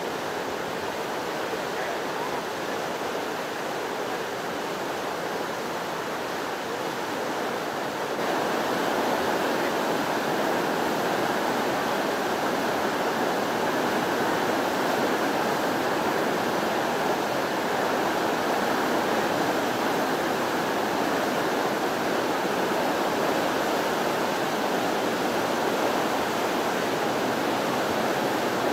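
Swollen floodwater rushing fast over rocks in a flooded river, a steady, even rushing of rapids that gets louder about eight seconds in.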